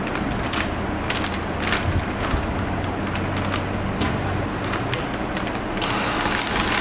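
Foil moisture-barrier bag crinkling as it is laid over a nozzle vacuum sealer's stainless steel nozzles, with a steady low machine hum. Near the end the clamp bar closes on the bag and a loud steady hiss of air rushing through the nozzles starts.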